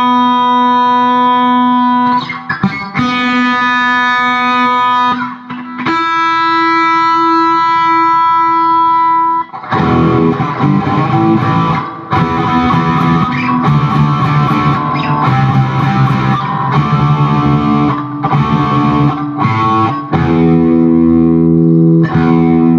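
Electric guitar played through a Zoom G1X Four multi-effects pedal on its Marshall-stack high-gain preset, at out-of-the-box settings, into a Peavey 6505+ combo amp. Long sustained distorted chords ring for about the first ten seconds. Fast, choppy riffing follows, and it ends on a held, ringing chord.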